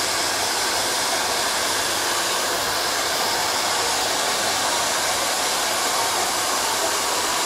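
Two handheld hair dryers running steadily, blowing air over long wet hair as it is dried.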